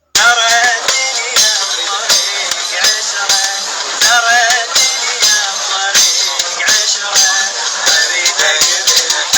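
Arabic pop song playing: a melodic singing voice over hand percussion keeping a steady beat, after a brief dropout at the very start.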